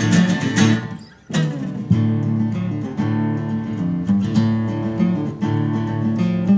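Country band playing an instrumental break led by strummed acoustic guitar. The music stops briefly about a second in, then the band comes back in together.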